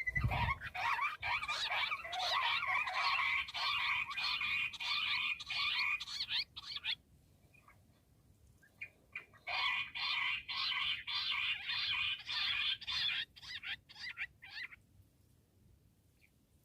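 Bush quail calling: two long bouts of rapidly repeated, chattering notes, the first lasting about seven seconds and the second starting after a short pause and ending about fifteen seconds in. A brief low thump comes at the very start.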